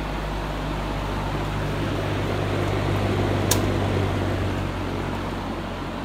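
Vintage General Electric F12W14 box fan running steadily on high, a rush of air over a low motor hum, its motor freshly torn down and oiled. A single sharp click sounds about three and a half seconds in.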